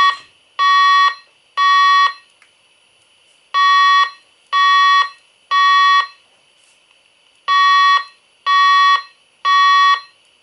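Fire alarm evacuation tone in the temporal-three pattern: three loud, steady-pitched beeps, a pause, three more beeps, and a third group of three. It plays through an Edwards speaker/strobe fitted with the speaker from a Wave 2 siren.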